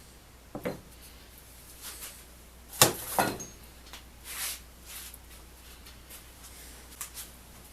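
Scattered light knocks and rustles of things being handled on a workbench, with one sharper knock a little under three seconds in.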